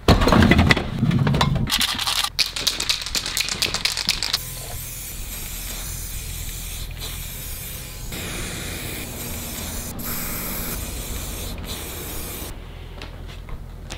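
Aerosol spray-paint can spraying onto a skateboard deck in long hisses with a few short breaks, from about four seconds in until near the end. Before it comes a quick run of clicks and knocks.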